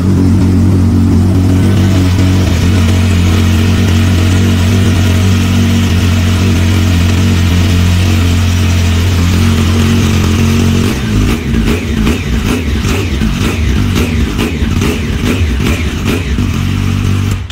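A Yamaha sport motorcycle's engine running loudly at a steady idle just after starting. About eleven seconds in, the note turns uneven and choppy, and near the end it cuts off suddenly as the engine is switched off.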